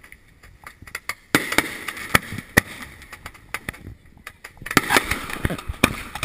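Consumer fireworks firing: a rapid series of sharp pops and bangs, with stretches of hissing and crackling about a second in and again near five seconds.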